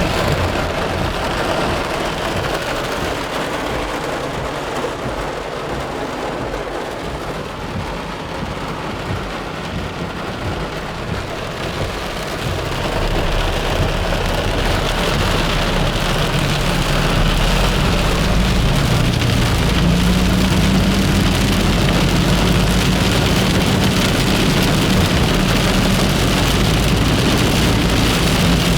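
Heavy storm rain pouring down steadily, growing louder about halfway through as a low rumble joins it underneath.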